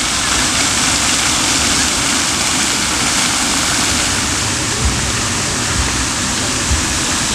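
Steady rushing noise of water, with a few soft low thumps in the second half.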